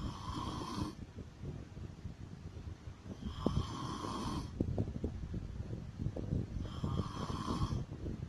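Woman snoring in her sleep: a steady rattling snore, with three higher whistling breaths about three and a half seconds apart.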